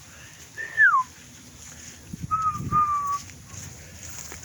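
Clear whistled calls: one note sliding down about half a second in, then two short, steady, lower notes a little past the middle, with a brief low rustle under them.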